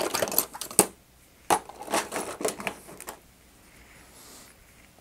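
Rapid clicking and clattering of small hard tools being rummaged through while someone searches for a screwdriver, stopping about three seconds in.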